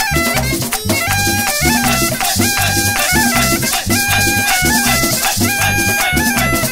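Upbeat Latin American carnival dance music: a quick stepping melody over a bass line, drums and a shaken rattle keeping time.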